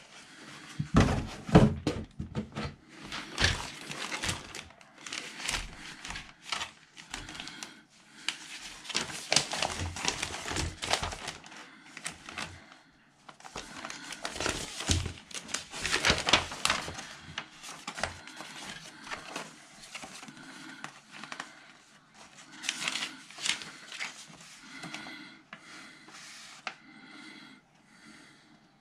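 Plastic parts bags crinkling and paper instruction sheets rustling as a plastic model kit is unpacked by hand, in irregular bursts with short pauses. A couple of light knocks come about a second in.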